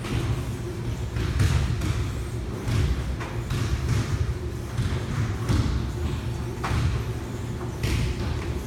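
Elliptical cross-trainer in use: a steady low hum with a regular thud about every second and a quarter.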